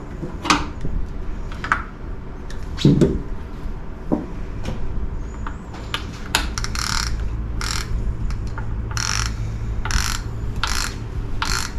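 Hand ratchet wrench tightening down the oil filter canister cap on a 1942 Ford GPW engine: a few scattered clicks and a knock, then from about halfway in repeated ratcheting strokes, roughly one a second.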